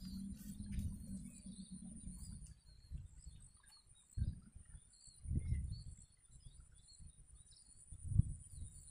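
Small birds chirping in quick, scattered calls over a steady thin high-pitched whine, with a few low rumbles on the microphone.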